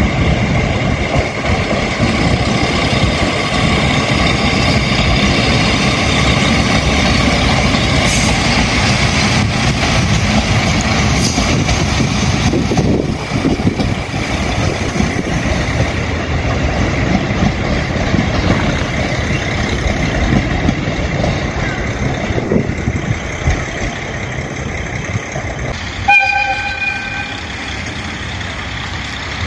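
Two-car diesel railcar set running slowly past with its engines running. About 26 seconds in, the train horn gives one short toot.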